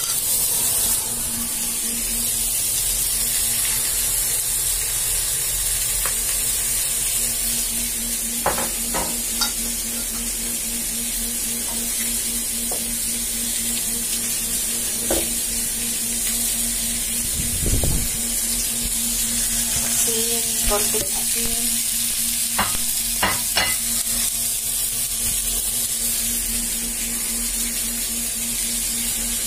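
Rice and beef adobo frying in an aluminium pan: a steady sizzle, with a spatula stirring and scraping through it and now and then a clink or knock against the pan. A steady low hum runs underneath.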